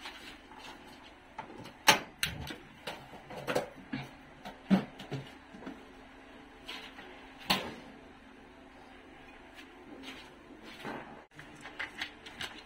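Scattered knocks and clicks of a stainless-steel frying pan, its glass lid and the gas stove being handled, over a faint steady hum. Near the end a quick cluster of clicks comes as the lid is off and the ribs are turned with a spatula.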